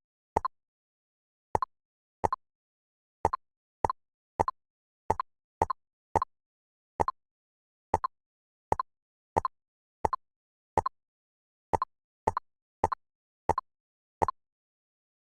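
Short, identical pop sound effects, about twenty at an uneven pace of one every half second to a second, with dead silence between: the snap effect of jigsaw puzzle pieces being placed in a puzzle game.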